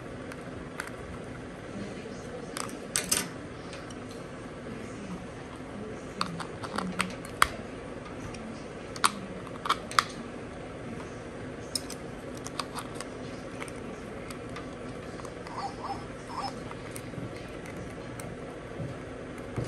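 Small screwdriver clicking and scraping in the underside of a plush toy dog while it is handled: a scatter of sharp ticks and clicks over a steady low hum.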